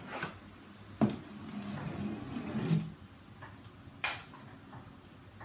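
A sharp knock, then a rough rolling, scraping rumble lasting nearly two seconds, and another sharp knock about four seconds in: hard plastic toys being knocked and pushed over a tiled floor.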